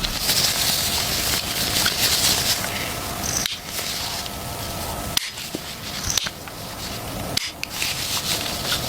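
Hand rubbing or scrubbing on a metal part, in several short clips joined by abrupt cuts, with a few light clicks.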